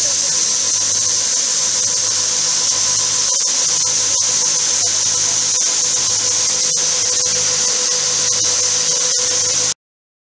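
NanoDrop tractor-mounted mist sprayer running: a loud, steady hiss of spray from its nozzle booms over a steady machine whine, with a low engine hum beneath. It cuts off suddenly near the end.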